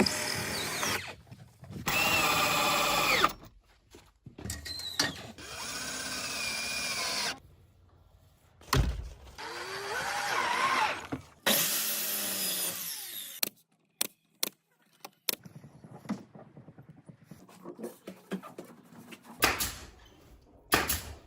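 Power drill running in several short bursts, its motor pitch rising and falling as it speeds up and slows, with sharp knocks and clicks between the bursts.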